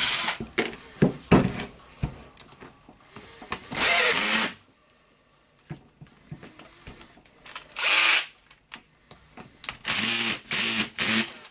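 Bosch cordless drill-driver running in several short bursts, backing out the screws of a demolition hammer's housing through an adapter bit. Light clicks and knocks from the tool and loose screws come between the bursts.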